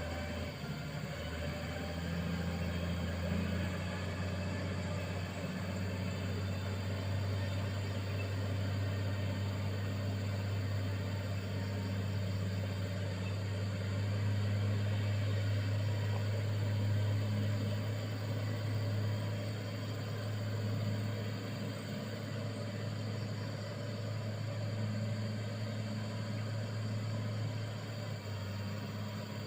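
Motor grader's diesel engine running steadily with a low drone, growing a little louder around the middle.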